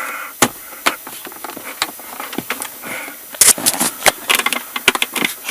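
Plastic dashboard trim panel of a Hyundai i30 being pressed and tapped back into its clips: a series of sharp plastic clicks and knocks, most densely a little past halfway.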